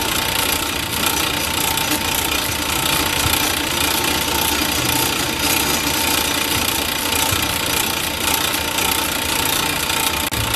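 South Bend 9-inch metal lathe running steadily under power, a constant machine noise with a thin steady tone through it.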